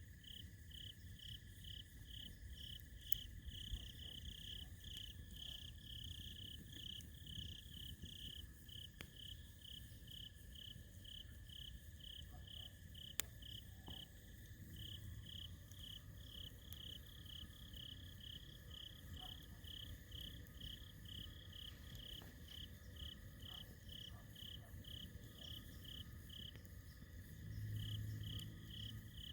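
Crickets chirping in a steady, even rhythm of about two to three chirps a second, with a brief pause near the end, over a continuous high insect drone. A few faint crackles and one sharp pop come from the campfire.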